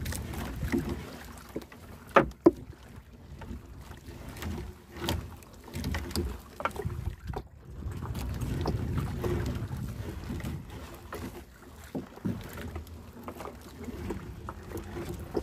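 Hand-hauling of a sunken gill net aboard a small fishing boat: water and wind rumble with scattered knocks and clatter against the hull. Two sharp knocks about two seconds in are the loudest.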